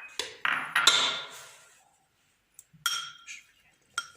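Dishes and utensils clinking against a metal cooking pot. A quick cluster of knocks with a ringing tail comes in the first second, then single ringing clinks come about three seconds and four seconds in.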